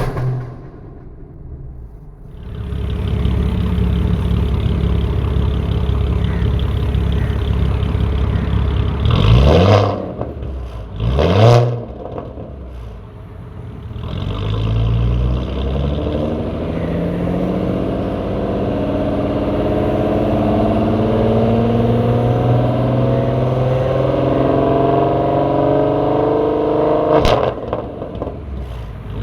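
Supercharged 3.0 V6 of a straight-piped B8 Audi S4: a steady engine drone, then two quick revs about ten and twelve seconds in. After that comes a long pull with the engine note slowly rising, and a single sharp crack near the end.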